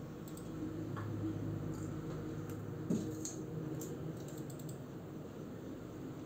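Light, irregular clicking of a computer keyboard, with one louder knock about three seconds in, over a steady low hum.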